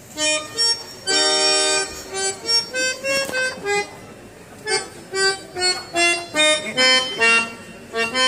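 Harmonium playing an unaccompanied melodic phrase: a held chord about a second in, then two quick runs of short notes with a brief pause between them.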